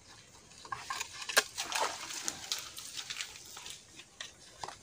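Wet mud squelching and crackling, with scattered small clicks, as hands scrape mud from the mouth of a bamboo tube trap and pull it out of a mud lobster mound. The crackling is densest about a second to three seconds in.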